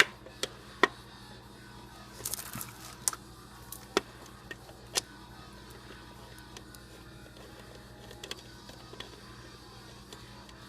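A hand tool tightening the distributor cap's hold-down screws: a handful of sharp clicks and a short rattle of metal on metal in the first five seconds, then only a few faint ticks over a low steady hum.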